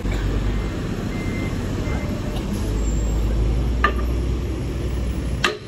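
Heavy truck engine running with a steady low rumble that swells as a truck passes, then two sharp metal knocks about a second and a half apart near the end: hammer blows on the dump truck's broken axle.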